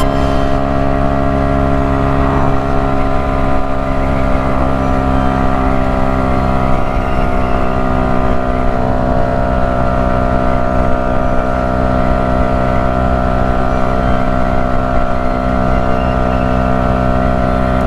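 Yamaha YZF-R125's 125 cc single-cylinder four-stroke engine running at a steady cruise in a high gear, with no change in pitch, heard from the rider's seat over a low rush of wind.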